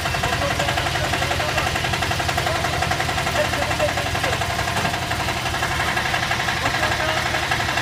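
Walk-behind tiller engine running steadily at idle with an even, rapid beat.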